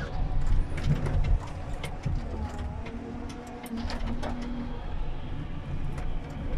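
Komatsu 931.1 forestry harvester working, heard from inside its cab: a steady machine rumble with hydraulics as the boom swings the harvester head. Sharp knocks and clatter come through it, loudest in the first second and a half.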